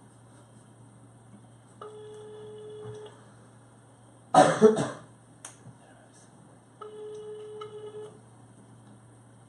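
Telephone ringback tone on a smartphone's speakerphone: two rings of one steady tone, each about a second and a quarter long and five seconds apart, while the call goes unanswered. Between the rings, about four seconds in, a short loud vocal burst from one of the men.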